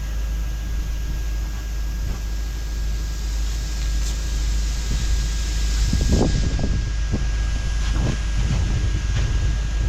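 Steady hiss of a sandblasting nozzle blasting abrasive at a steel hull, over a low rumble. From about six seconds in, irregular low knocks join it.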